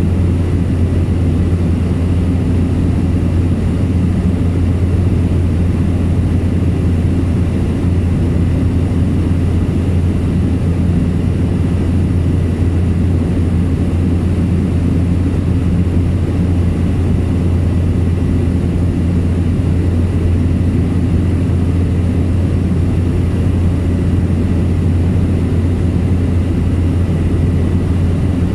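Steady drone of a fixed-wing aircraft in flight, heard from on board: a deep, even hum with a faint high whine.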